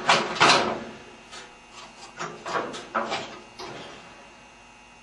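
A flat screwdriver prying the worn front drum bearing out of a General Electric dryer: scraping and clicking, loudest in the first half-second, then scattered smaller clicks that fade away.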